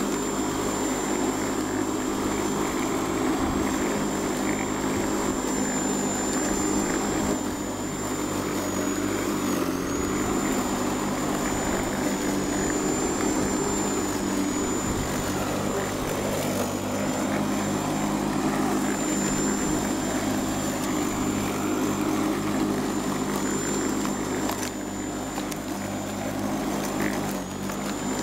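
Einhell GC-EM1030 electric lawnmower running and cutting grass: a steady motor hum with a high whine, which sags briefly now and then under load. The motor turns freely after a seized bearing was dealt with, and the mower cuts normally.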